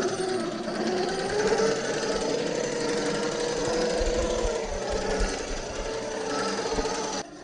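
Axial SCX10 III RC crawler's 2300kv brushless motor and geared drivetrain whining steadily as the truck crawls slowly over rock. The pitch wavers and rises a little about a second and a half in, and the sound drops off suddenly right at the end.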